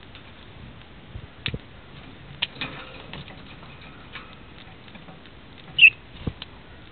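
Two budgerigars pecking and husking seed from a dish: an irregular patter of small clicks and ticks. One short, loud high-pitched squeak near the end.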